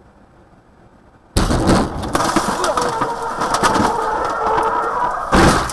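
A car is struck by a semi truck with a sudden loud crash about a second and a half in, heard from inside the struck car. Loud scraping and grinding with a steady shrill squeal follow as the car is pushed sideways along the road, and another heavy impact comes near the end.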